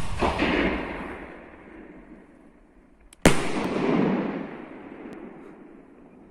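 A large firework going off with a sharp bang about three seconds in, followed by a long rolling echo; before it, the echo of an earlier bang fades away.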